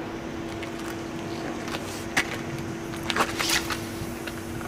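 A sea-fishing rod cast with braid off a fixed-spool reel: a short swish with a few sharp clicks about three seconds in, over a steady low hum.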